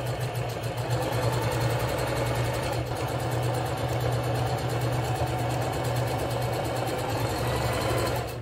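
Electric sewing machine running steadily at speed, stitching a straight seam through fabric, then stopping right at the end.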